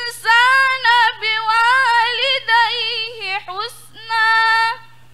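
A woman's voice reciting the Qur'an in a melodic murattal chant, with held, wavering notes in short phrases, ending on a long held note that stops shortly before the end.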